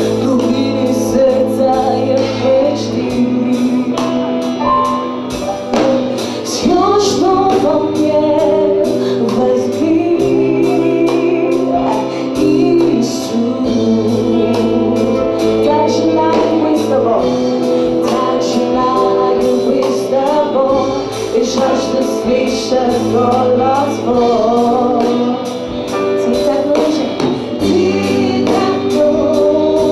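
Gospel group singing a worship song in Russian, a woman leading into a microphone with other voices joining, over held keyboard chords and steady light percussion.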